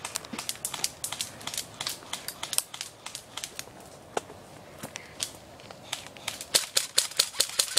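Airsoft rifles firing: a scatter of sharp snapping shots, coming faster and louder in a burst near the end.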